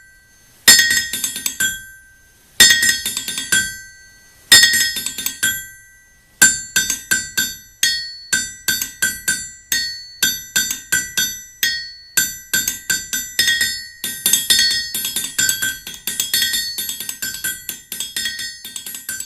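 Closing music: a bright, chiming struck-note tune, three ringing strokes about two seconds apart, then a quick run of notes from about six seconds in.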